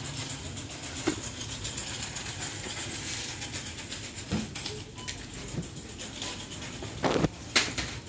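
Supermarket background with a steady low hum, broken by a few brief knocks and rustles of produce being handled, the loudest two close together near the end.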